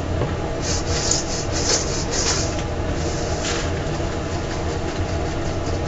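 Food-trailer kitchen noise: a steady low hum of running equipment, with a run of short scraping strokes from about half a second to three and a half seconds in.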